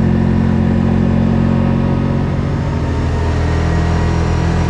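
Kawasaki Teryx side-by-side's engine running steadily under way, with a low, even hum and a slight shift in pitch partway through.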